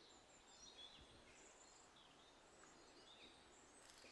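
Near silence, with faint high bird chirps here and there.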